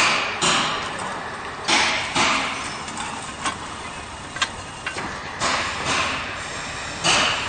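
QT4-26 semi-automatic concrete block making machine working: a steady mechanical rush with irregular louder surges and thumps, and two sharp clicks around the middle.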